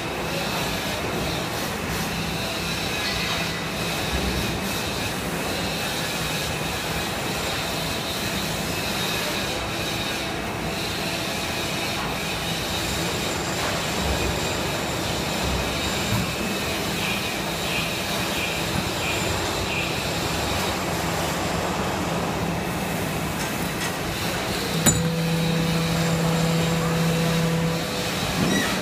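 Injection moulding machine running, a steady mechanical hum and hiss. Near the end, a sharp click, then a louder, steady droning hum for about three seconds.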